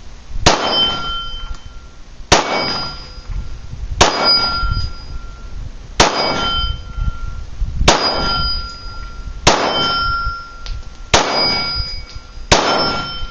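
9mm Glock 19 Gen 4 pistol firing eight shots, about two seconds apart. After each shot comes the brief ring of a struck steel gong target.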